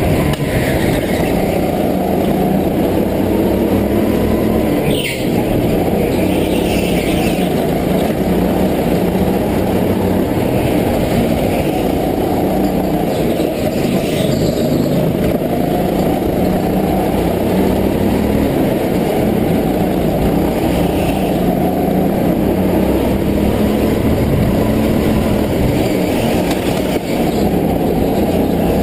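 Go-kart engine running steadily under way, heard from onboard the kart.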